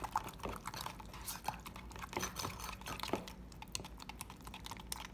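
A metal spoon stirring thick non-fat plain Greek yogurt in its plastic tub, with quick irregular clicks and scrapes of the spoon against the tub. The clicking is busy for about three seconds, then thins out.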